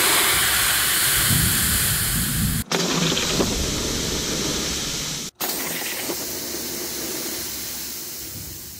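Compressed CO2 cartridges on small wooden toy vehicles hissing as the gas jets out behind them. A long, loud hiss that breaks off for an instant twice and slowly fades as the cartridges empty.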